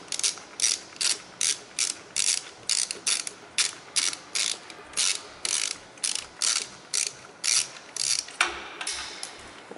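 Ratchet wrench with a 12 mm socket clicking in quick back-and-forth strokes, about two to three a second, as it undoes an exhaust header nut. The clicking stops about eight and a half seconds in.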